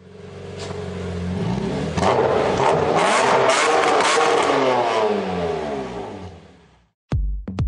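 Renault Megane 3 RS's 2.0-litre turbocharged four-cylinder engine accelerating hard, its pitch climbing and getting louder, with a few sharp cracks along the way, then fading out near the end. Electronic music with a steady beat begins just before the end.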